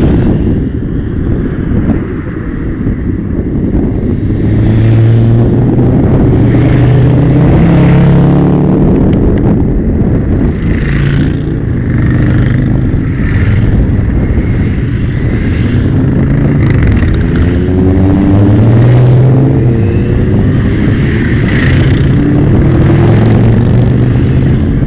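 Several motorcycles riding past one after another, each engine note rising and falling as it passes, over a steady low rumble.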